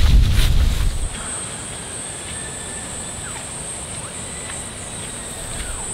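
A loud low rumble for about the first second, which stops abruptly. Then crickets trill steadily in one continuous high-pitched tone, with a few faint short chirps.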